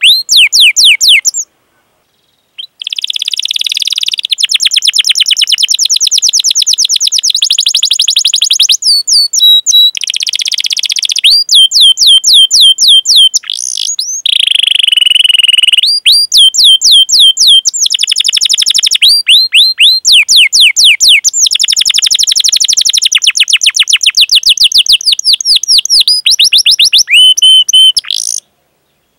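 Domestic canary singing a loud, long song of fast repeated chirping notes and rolling trills, phrase after phrase. There is a short pause about a second and a half in, and another near the end.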